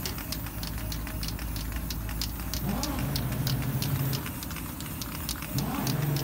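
Aerosol spray-paint can being shaken, its mixing ball rattling in quick, even clicks, about four or five a second. Twice, about three seconds in and again near the end, a louder low pitched sound sweeps up and then holds steady for a second or so.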